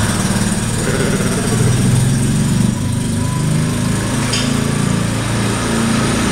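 Small diesel engine of a Microcar microcar running as the car pulls away at low speed, its note shifting up and down a little.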